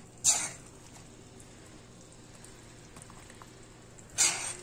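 A ladle scooping thick curry gravy in a steel karahi pan, with two short scraping, splashing sounds about four seconds apart, one near the start and one near the end, over a faint steady hum.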